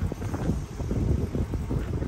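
Wind buffeting the microphone outdoors: an uneven, gusty low rumble.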